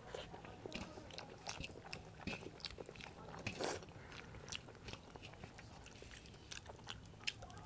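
Close-up mouth sounds of rice and curry being eaten by hand: soft wet chewing with many small lip smacks and clicks. A louder rubbing sound comes about halfway through, as fingers gather rice on the steel plate.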